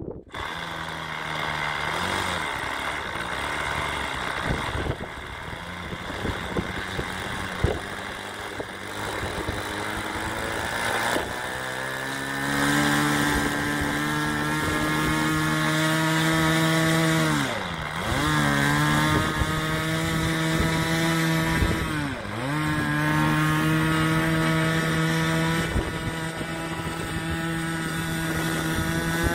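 A model airplane engine is spun up with a handheld electric starter and catches about twelve seconds in, then runs steadily. Its revs drop sharply and recover twice, near the middle and again a few seconds later.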